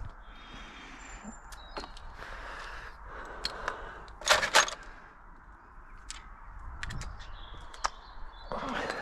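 Scattered clicks and knocks of hand tools and metal parts being handled, with a loud clattering cluster about four and a half seconds in.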